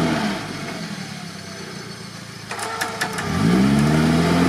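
An off-road 4x4's engine revving hard under load in deep mud: the revs fall back at the start, ease off for a couple of seconds, then climb again a little after three seconds in and stay high.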